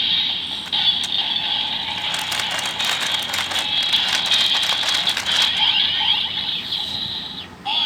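Kamen Rider Build Driver toy belt playing its electronic standby sound through its small, tinny speaker, with the Light and Octopus Full Bottles inserted. From about two seconds in to about five and a half seconds, the crank lever is turned, making rapid ratcheting clicks.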